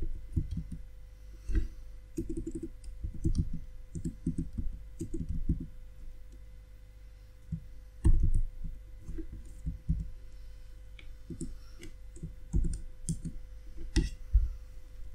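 Typing on a computer keyboard: bursts of loud keystrokes with short pauses between them.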